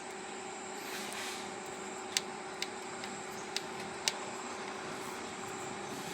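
Kubota M9000 tractor's four-cylinder diesel engine running steadily, with four sharp clicks in the middle; the engine is one suspected of knocking and running noisy.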